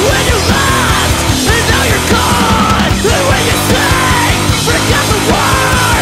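Live rock band playing loud, with electric guitar and keyboard over a steady beat.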